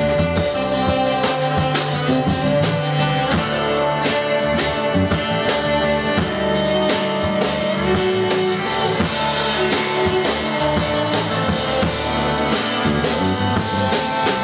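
Band music with guitar and drum kit playing steadily, in a rock style.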